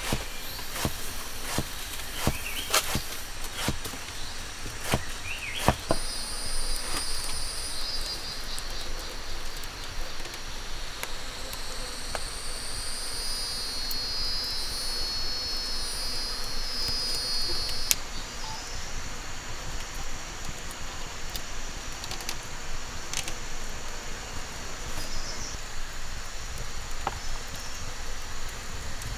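Forest insects calling, with a high, pulsing trill that starts about six seconds in and stops suddenly about eighteen seconds in. Several sharp clicks and rustles in the first six seconds.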